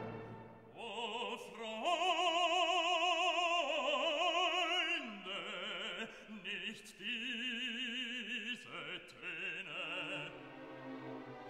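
Classical background music: an operatic solo voice sings long held notes with a strong vibrato, over soft accompaniment.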